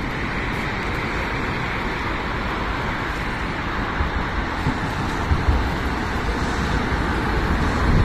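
Steady road-traffic noise with low rumble, as a tram approaches along its track and grows a little louder toward the end.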